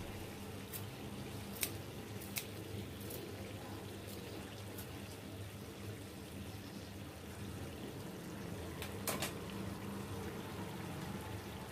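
Chicken curry simmering in a kadai on a gas stove, with a few sharp pops over a steady low hum.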